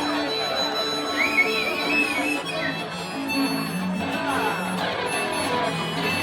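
Live band playing an instrumental break: guitar chords with a high, wavering lead melody over them.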